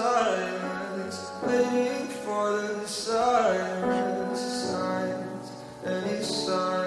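A song with a singing voice over held instrumental notes, played for a dance routine.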